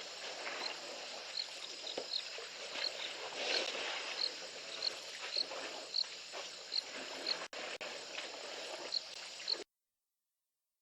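An insect chirping, a short high note repeating one or two times a second over a steady background hiss. The audio drops out twice briefly past halfway and then cuts to silence near the end.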